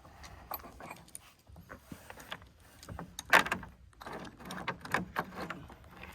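Metal clinks and rattles of a chainsaw chain and bar being handled and fitted, as short irregular clanks with one louder clank about halfway through.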